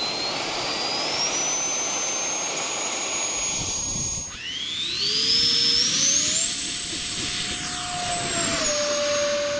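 Electric ducted fan of a 3D-printed RC Harrier jet model running up on grass: a loud rush of air under a high whine that rises and settles. About four seconds in it dips briefly, then spools up again to a higher whine and holds, easing off a little near the end.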